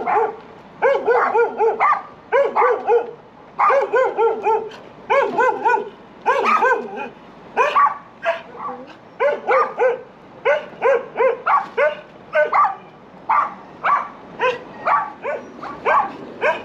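A dog barking over and over in quick runs of several barks, with short pauses between runs.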